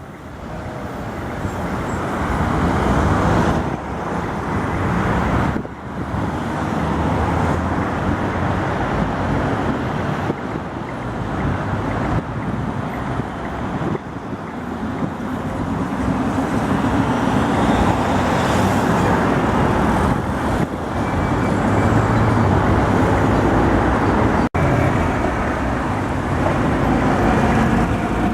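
Tatra T3 trams and road traffic running through a city square: a steady rumble of steel wheels, motors and tyres that builds over the first few seconds. A faint high whine rides on it in the second half, and the sound drops out for an instant near the end.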